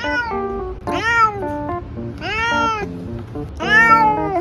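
Domestic cat shut in a pet carrier, meowing over and over in protest: four long meows, each rising then falling in pitch, the loudest near the end. Background music plays under the meows.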